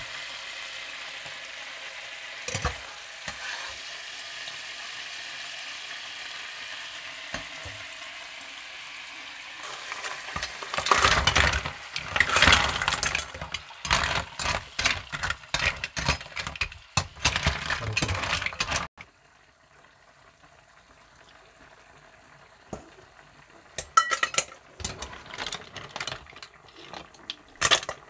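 Sauce sizzling in a frying pan, then a metal spatula stirring mussels in their shells, the shells knocking against each other and the pan in a quick run of loud clattering. The sound cuts off suddenly partway through, and quieter clicks of the stirring follow near the end.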